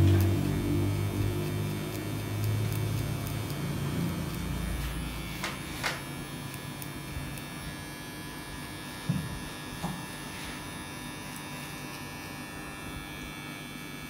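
Cordless electric hair clipper running steadily at a barber's fade cut, a constant motor hum. A low rumble fades away over the first few seconds, and there are a few faint clicks.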